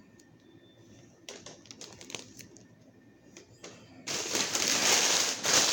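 Plastic packaging being handled: a few light clicks at first, then, about four seconds in, a loud continuous rustle.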